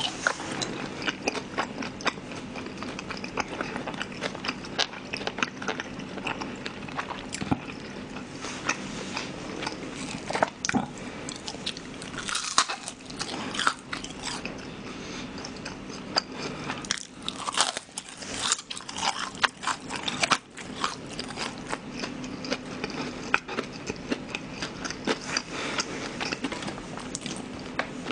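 Close-miked chewing and biting of sweet-and-sour shrimp in glutinous rice batter: wet mouth sounds with frequent small crunches and clicks, the batter gone soggy and less crisp than usual. A steady low hum runs underneath.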